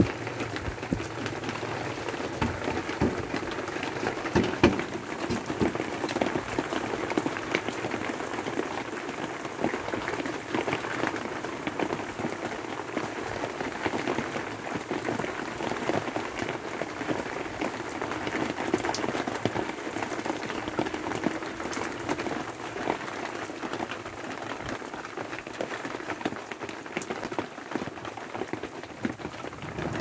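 Heavy rain falling steadily: a dense, even hiss with many individual drops ticking through it.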